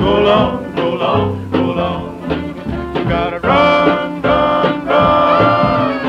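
A 1948 78 rpm record playing: a vocal group singing with instrumental accompaniment, the voices holding long chords in the second half.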